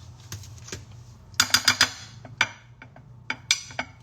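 Kitchen utensils and dishes being handled: sharp clicks and clinks, a quick run of four about one and a half seconds in and another cluster near the end, over a low steady hum.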